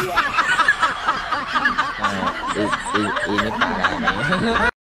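Laughter from several voices overlapping, snickering and chuckling, which cuts off suddenly near the end.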